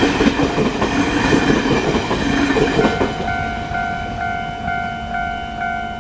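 A Taiwan Railway train running through a level crossing, its wheels clacking over the rail joints, with the passing noise ending about three seconds in. After that the crossing's electronic warning bell is heard alone, ringing steadily at about two strikes a second while the crossing is still closed.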